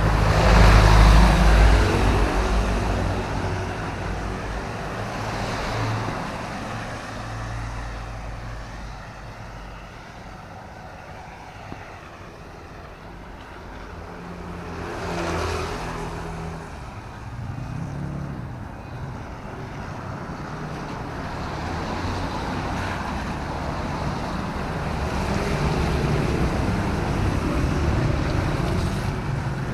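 Vehicles passing on a wet city road in drizzle, with engine hum and tyre hiss. One loud pass comes at the start, another about halfway, and a third builds near the end, over steady traffic and rain noise.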